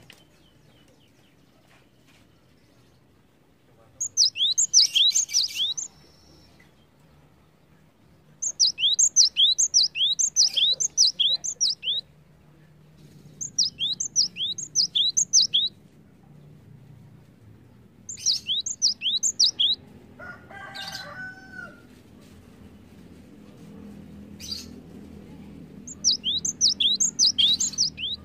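Cinereous tit (gelatik batu) singing: five bursts of rapid, sharp repeated high notes, each burst two to three and a half seconds long with pauses of a few seconds between.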